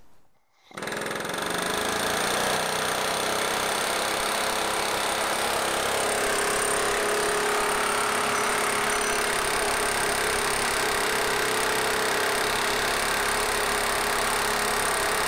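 Pneumatic air hammer hammering in a fast, continuous, steady rattle on a VW bus rear suspension arm's old bushing, trying to drive out a stuck bushing. It starts under a second in and keeps going without a break.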